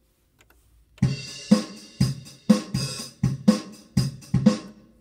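Drum kit sound from a Roland FA-08 music workstation: a steady beat of kick and snare hits about two a second with hi-hat and cymbal over them, starting about a second in and stopping just before the end.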